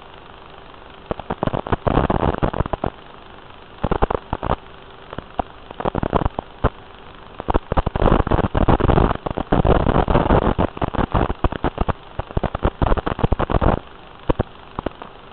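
Crackling static from an analog FPV video receiver's audio channel. The crackles come in bursts of dense clicks over a steady faint hum, thickest for several seconds past the middle and dying away shortly before the end.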